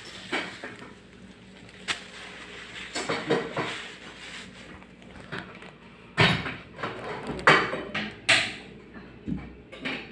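Irregular knocks and clinks of tools and metal parts being handled, with a cluster of louder knocks about six to eight seconds in.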